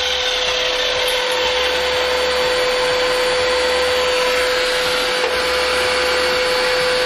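Sliding compound mitre saw's 2000-watt belt-driven motor running steadily at full speed, with a constant whine under the hiss of the blade working through timber.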